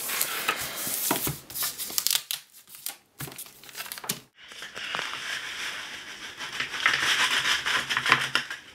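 Plastic wrapping around a drawing tablet crinkling and rustling as it is handled and pulled off. There is a brief lull about two and a half seconds in, then steady crinkling from about four and a half seconds on.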